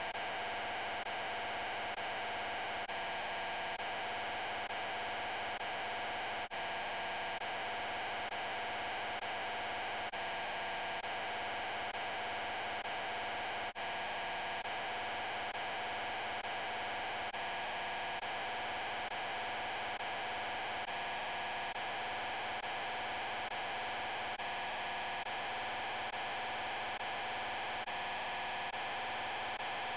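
A dense, steady wall of noise with a hum running under it: the 'I'm Peppa Pig' voice clip stacked on itself so many times that the words blur into one continuous drone. It drops out for a split second twice, about six and a half and fourteen seconds in.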